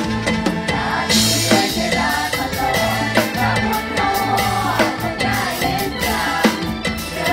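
Isan mor lam band music: a drum kit keeps a steady beat under a bass line and melodic lines, with a cymbal crash about a second in.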